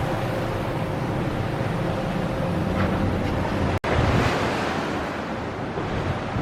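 Sea surf washing against a rocky shore, with wind buffeting the microphone. The sound drops out for an instant nearly four seconds in, then carries on.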